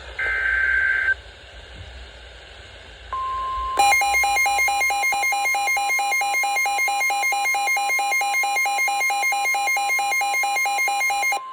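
Emergency alert tones for a severe thunderstorm warning. It opens with the tail of a burst of SAME digital header data. A steady 1050 Hz weather-radio warning tone follows, and a rapidly pulsing alarm tone joins it. The pulsing cuts off sharply near the end.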